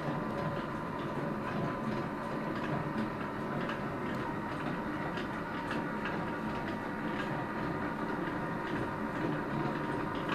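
Honey creaming stirrer running: a steady mechanical hum with a faint whine and light clicks every half second to a second.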